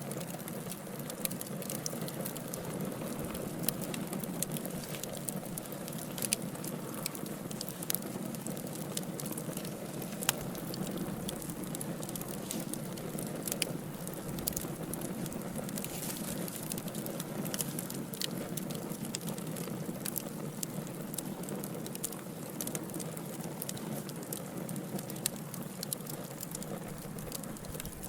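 Wood fire burning in a fireplace: logs crackling, with frequent irregular sharp pops over a steady low rushing of the flames.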